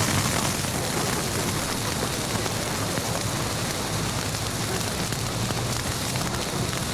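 Steady heavy rain: a dense, even hiss with no distinct drops or beats.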